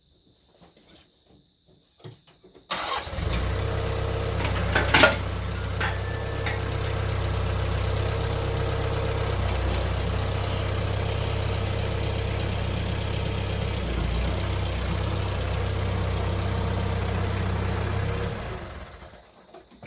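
An engine starts suddenly about three seconds in and runs steadily, with a sharp clunk shortly after it starts. Near the end it winds down and stops.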